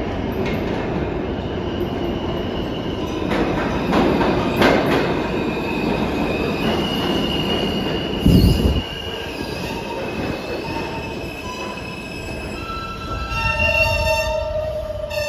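A New York City subway train pulling into an underground station: the rumble of steel wheels on rail with clacks over the rail joints, a high wheel squeal, and one heavy low thump about eight seconds in. Near the end a cluster of squealing tones sounds as the train slows to a stop.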